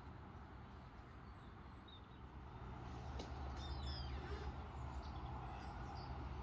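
Outdoor background of a low steady rumble that grows a little louder about halfway through, with a few short bird chirps just after it rises.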